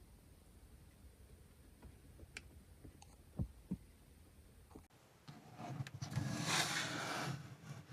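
A few faint clicks and taps, then about five seconds in a hissing spray starts and grows louder, wavering: an airbrush spraying paint onto a plastic model hull.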